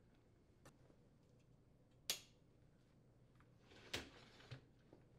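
Faint clicks of the plastic stop clip on an Electrolux dishwasher's upper rack rail, the sharpest about two seconds in, then a brief rattle of the wire dish rack moving on its rails about four seconds in.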